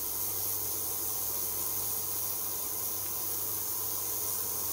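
Large ultrasonic cleaning bath running: a steady hiss with a low electrical hum underneath.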